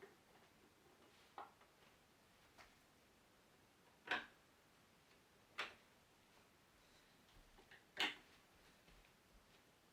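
Near silence broken by four short, sharp knocks or clicks spread a second or more apart, the ones about four and eight seconds in the loudest.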